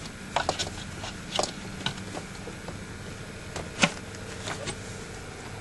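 Light clicks and knocks of hands working in an engine bay, pushing vacuum hoses and connectors back on, scattered and irregular, with the loudest knock a little under four seconds in.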